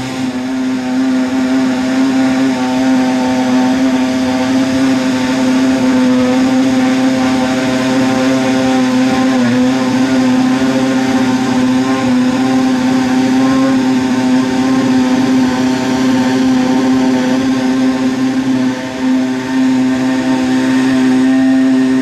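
Racing car engine running at steady high revs, its pitch held nearly constant rather than rising and falling as in a pass-by, with a brief dip in loudness near the end.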